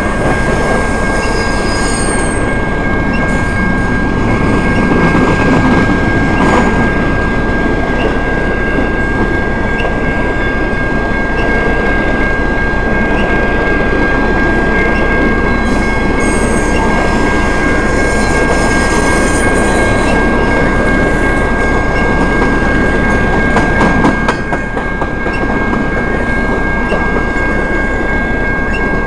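Freight train of intermodal well cars rolling past close by: a steady dense rumble of wheels on rail with clickety-clack over the joints, a steady high squeal throughout, and sharper wheel squeals about two seconds in and again from about sixteen to twenty seconds.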